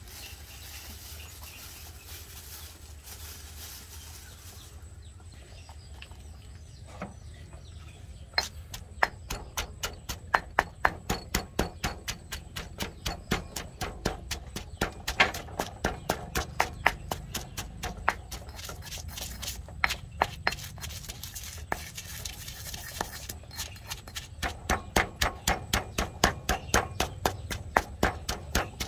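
Stone pestle pounding salt and red chilies in a stone mortar: a rapid run of sharp knocks, about three or four a second, starting about eight seconds in and broken by a few short pauses.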